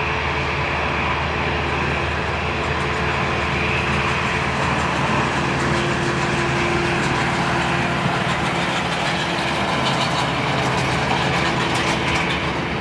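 Airbus A320-family airliner's jet engines running at idle as it taxis past: a steady hum with several held tones.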